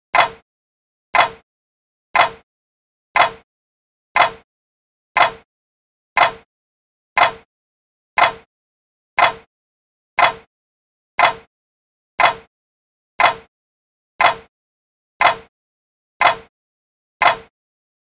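A clock ticking steadily, one sharp tick about every second, evenly spaced, with silence between the ticks.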